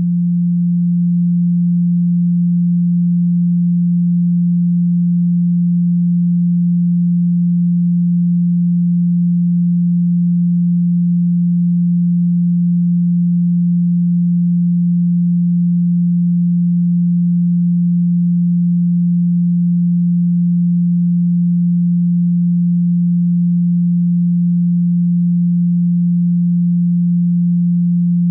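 A steady, pure 174 Hz sine tone, the Solfeggio 'healing' frequency, held at one pitch throughout. It finishes fading in about a second in.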